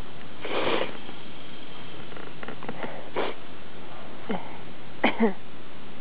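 A woman sniffling a few times, then short, sharp voiced catches of breath with a falling pitch about five seconds in, as she fights to hold in a sneeze.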